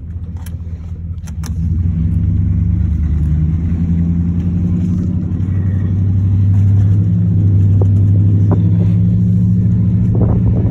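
Vehicle engine and road noise heard inside the cab while driving, a steady low drone that gets louder about two seconds in as the vehicle speeds up. A couple of sharp clicks sound in the first second and a half.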